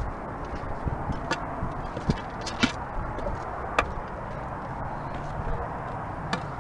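Footsteps on a rocky hiking trail: irregular sharp clicks and scuffs every second or so, over a steady low rumble.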